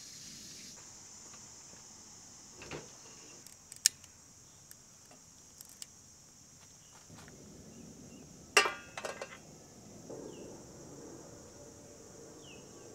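Metal cookware being handled on a small camp stove: scattered light clinks, then one loud ringing metal clank with a brief rattle past the middle as the aluminium mess tin is set down. Near the end comes a soft, low pouring sound as oil runs into the tin.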